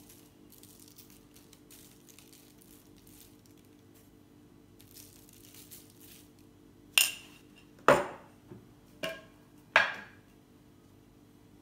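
Dried thyme being sprinkled over potatoes in a baking tray, soft and faint, followed in the second half by four sharp clinks of glass or dishware, over a faint steady hum.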